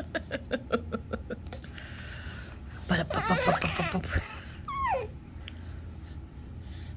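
Five-month-old baby laughing while being tickled: a quick run of short laughs in the first second and a half, another burst about three seconds in, and a falling squeal near five seconds.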